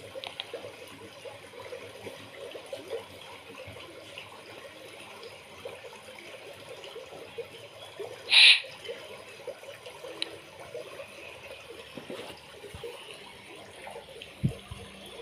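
Underwater ambience: an even wash of water with faint crackling, and one short, loud burst of noise a little past halfway through.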